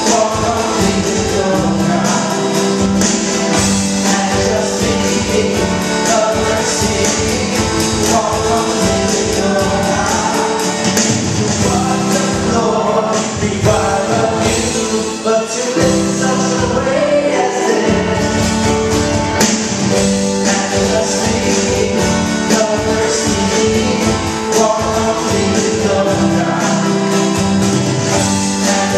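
Live worship song: singers on microphones with acoustic guitar and a drum kit keeping a steady beat, and many voices singing along.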